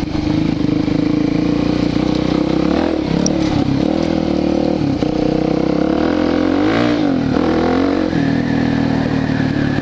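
Suzuki DR-Z400SM's single-cylinder four-stroke engine running under way, its exhaust fitted with a silencer insert that doubles as a spark arrestor. The revs dip and climb again as the throttle is worked, about three seconds in and again around seven seconds in.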